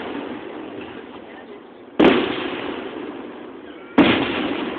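Aerial fireworks shells bursting: two loud bangs about two seconds apart, each followed by a long fading rumble.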